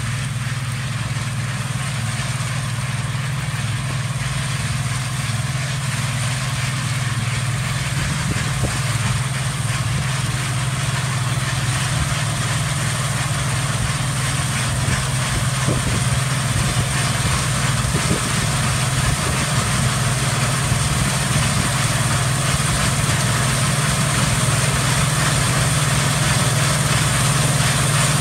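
Claas combine harvester running steadily while cutting wheat: a low engine hum under the broad noise of its machinery, slowly growing louder as it comes closer.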